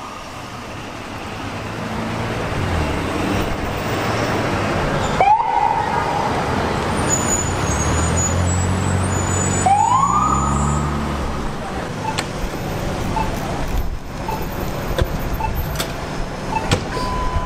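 Police cruiser's electronic siren sounded in short bursts, each rising in pitch and then held briefly, about 5 and 10 seconds in, over street traffic. A heavy vehicle's engine rumbles between the bursts, and short beeps come near the end.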